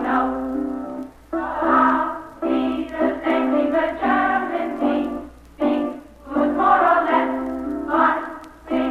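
A high-school student chorus singing a song in phrases with short pauses between them, on an old 1962 live recording with a faint steady low hum beneath.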